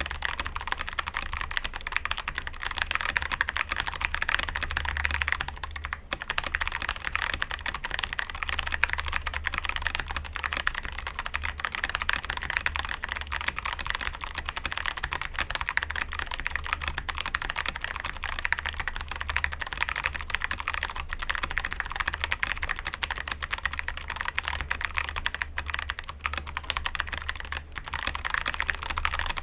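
Continuous fast typing on a Feker JJK84 mechanical keyboard with clicky Kailh Box White switches and XDA keycaps: a dense stream of crisp clicks, the board tape-modded and foam-dampened.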